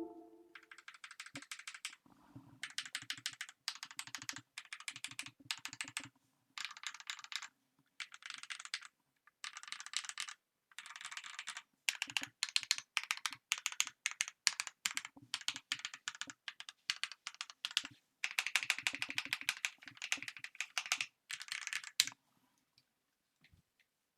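A Nimbleback K61 mechanical keyboard being typed on in fast runs of keystrokes broken by short pauses; the typing stops about two seconds before the end. Its case is packed with layers of paper and tilted up on its adjustable feet to give a denser, less hollow, poppier and higher-pitched sound.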